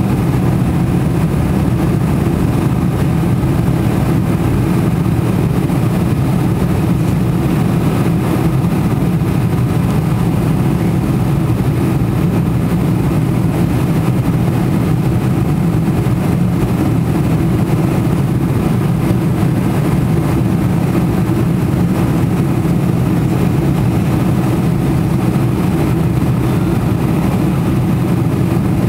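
Steady in-flight cabin noise of a Boeing 747 heard at a window seat over the wing, with its trailing-edge flaps extended: the even drone of the jet engines and rushing air, deep and unchanging throughout.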